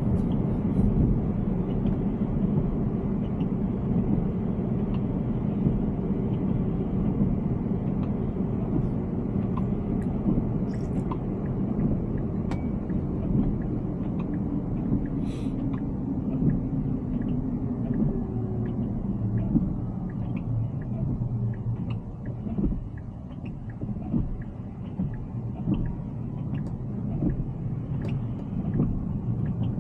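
Steady low rumble of tyre and road noise from a Tesla Cybertruck driving along, with a few faint ticks.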